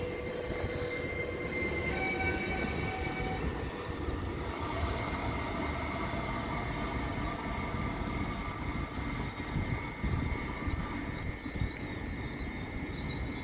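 Trenitalia 'Pop' (Alstom Coradia Stream) electric multiple unit running along the platform, with the rumble of its wheels on the track. Its electric drive whines in several steady high tones that step up in pitch about two seconds in.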